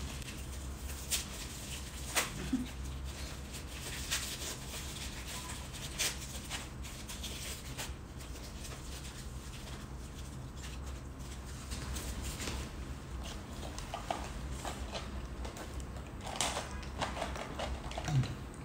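Close-up eating sounds: chewing and noodle slurping, with the crinkle of an onigiri's plastic wrapper being peeled off and scattered sharp clicks of a fork on a plastic food tray.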